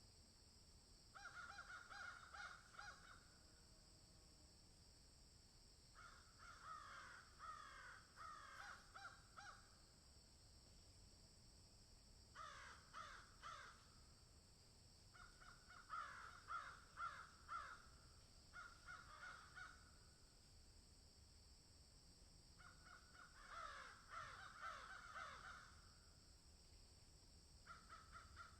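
Crows cawing in a field: bouts of several harsh caws in quick succession, roughly every few seconds, with short pauses between. A steady high-pitched hiss runs underneath.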